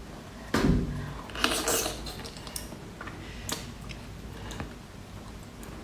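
A whole sea cucumber being bitten and eaten close to the microphone: scattered mouth noises and short clicks, the loudest about half a second in and a cluster a little later.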